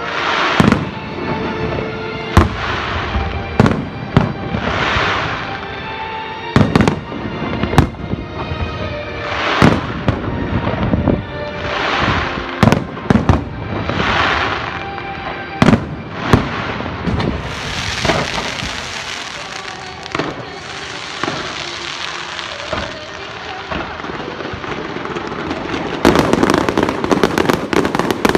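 Fireworks display: shells bursting in sharp bangs every second or two, with hissing, crackling swells between them, over music. Near the end a dense, rapid crackle of many small reports.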